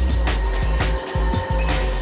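Background documentary score: a sustained deep bass with held tones and repeated percussive hits.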